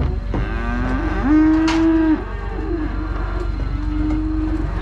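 Calves mooing: four long, steady calls in a row, the loudest about a second and a half in.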